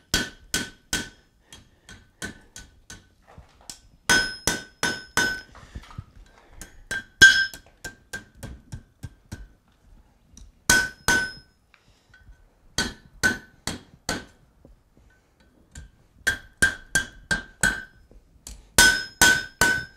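Hammer blows on red-hot iron over the anvil horn, bending the bar into a hook. The blows come in quick bursts of several strikes with short pauses between, and each strike leaves the anvil ringing briefly.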